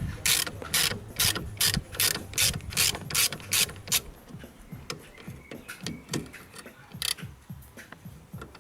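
Ratchet turning a Torx T20 bit to undo a screw, its pawl clicking on each back-stroke. The clicks are sharp and even, about three a second, for the first four seconds, then thin out to a few scattered clicks.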